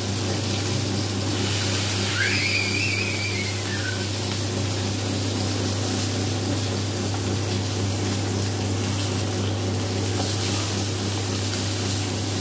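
Steady low mechanical hum with an even hiss over it, like a small motor running. About two seconds in, a faint whistle-like tone rises and then falls.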